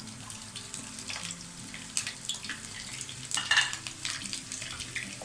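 Chopped onion sizzling and crackling in hot cooking oil in a non-stick frying pan, just after being added, with a few louder crackles about two and three and a half seconds in.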